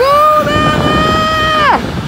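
Electric freight locomotive's horn sounding one steady blast of about a second and a half, dropping in pitch as it cuts off, over the low rumble of the passing freight train.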